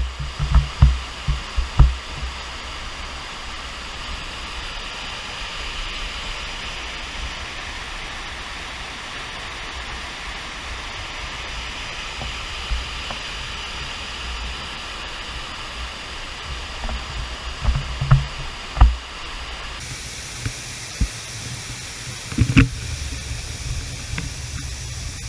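Waterfall rushing: a steady, even noise of falling water, with a few low thumps on the microphone near the start and again late on. About twenty seconds in, the water sound changes character abruptly, as from one spot to another.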